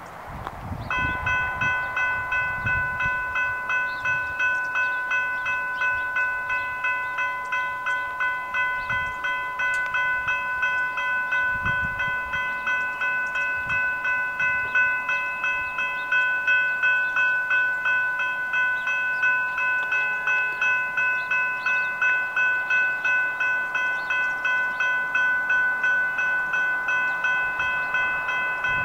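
General Signals Type 3 electronic level-crossing bells start ringing about a second in and keep up a rapid, steady clang of about three strikes a second. This is the crossing activating to warn of an approaching train.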